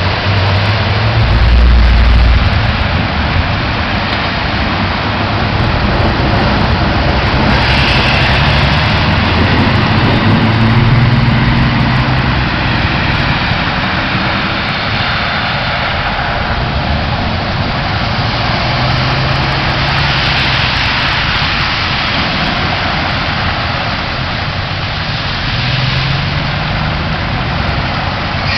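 Cars and trucks driving through deep floodwater, their tyres sending up rushing splashes and wakes with engine hum as each passes, over the constant hiss of heavy rain and running water. A deep rumble comes about two seconds in, and several vehicles pass in turn.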